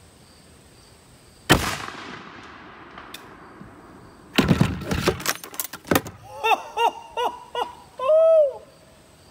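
A single loud shot from a helium-charged AirForce .45 big-bore PCP air rifle firing a 450-grain slug, about a second and a half in, its echo dying away over the next second or so. About three seconds later comes a louder burst of clattering knocks as the chronograph tips over. Near the end a man gives several short laughing exclamations.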